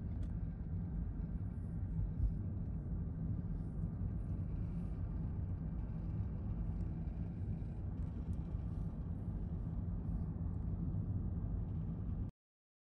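Steady low rumble of road and engine noise inside the cabin of a car driving on a motorway. It cuts off abruptly near the end.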